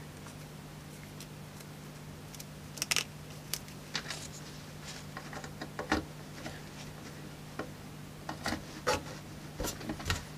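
Test leads with alligator clips and banana plugs being handled and pushed into a bench power supply's output terminals: scattered small clicks, taps and rubbing, thickest near the end, over a steady low hum.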